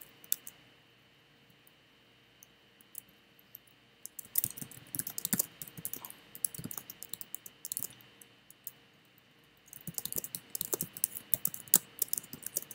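Typing on a computer keyboard: rapid runs of key clicks, the first starting about four seconds in and a denser one about ten seconds in, with only scattered clicks before and between.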